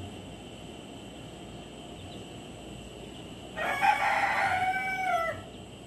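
A rooster crowing once, a single call of nearly two seconds that begins a little past halfway and drops in pitch at its end.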